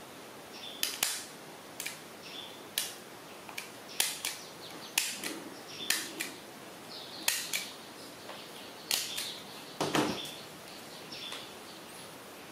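A handheld stapler snapping shut again and again, about a dozen sharp clicks spaced unevenly, as a disposable diaper is stapled to size. The loudest snap, with a duller thud, comes about ten seconds in.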